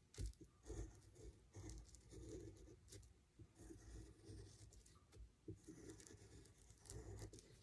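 Faint scratching of a graphite pencil tracing lines on tracing paper, in short irregular strokes.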